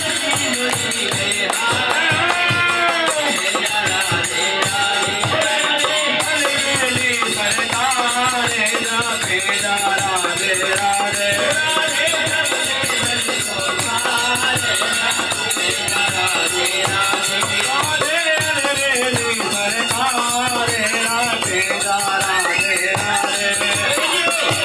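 Group singing of a Hindu devotional song, over continuous rattling, jingling hand percussion that keeps a steady beat.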